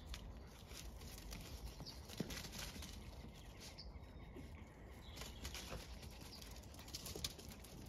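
Faint outdoor sound of two small dogs scuffling and running on grass: soft scattered rustles and paw patter, with a few faint bird chirps.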